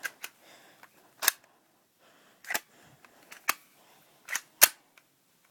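A series of about seven sharp, short clicks and taps, unevenly spaced, with quiet between them: the sound of something small and hard being handled.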